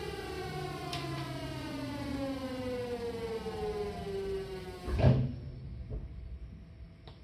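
Seibu 6000-series train's Hitachi GTO-thyristor VVVF inverter whining in several tones that fall together in pitch as the train slows. About five seconds in there is a loud thud and the whine cuts off, leaving a faint steady hum.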